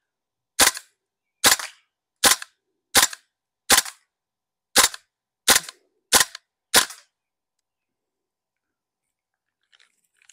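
KJ Works M4 Carbine green gas blowback airsoft rifle firing on semi-automatic: nine sharp shots, one every second or less, stopping about seven seconds in as the magazine runs out of BBs. A few faint clicks near the end.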